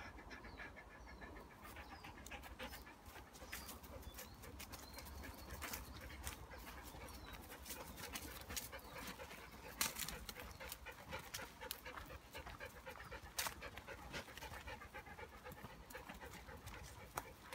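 A dog panting as it walks, faint, with footsteps and small crackles on a dirt path scattered with dry leaves and twigs; a couple of sharper snaps stand out.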